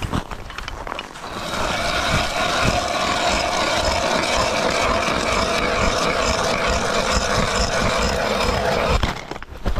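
Ice auger driven by a drill boring through thick lake ice: a steady motor whine with the blades grinding ice. It starts about a second in and stops shortly before the end.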